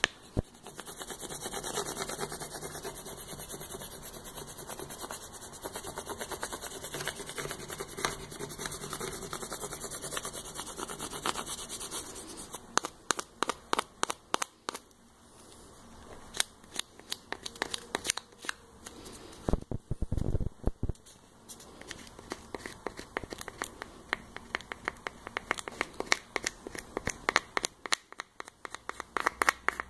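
Plastic scraper rubbing steadily over vinyl decal transfer paper, pressing the decal down onto the mixer body. About twelve seconds in the steady scraping gives way to scattered crackles and clicks as the paper is handled and smoothed.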